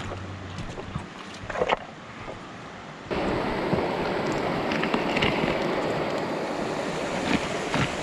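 Creek water rushing steadily, coming in suddenly about three seconds in; before that it is quieter, with a few small clicks and splashes.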